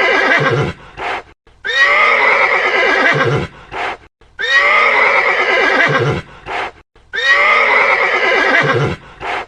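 Horse neighing: the same whinny repeated about every two and a half seconds, the tail of one and then three full ones, each falling in pitch and followed by a short burst of sound.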